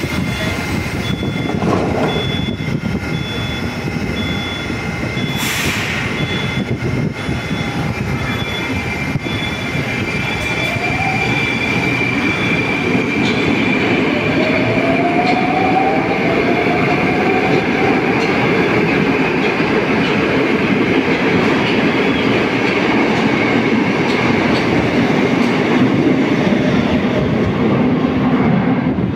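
Moscow Metro train pulling out of an underground station: a rising motor whine as it picks up speed, with the wheels running on the rails growing steadily louder.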